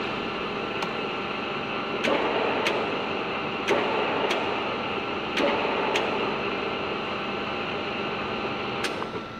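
Milling machine running with a steady hum and whine. About eight sharp clicks come as its feed control buttons are pressed, and the running noise rises briefly at several of them as the table's power feed is switched on.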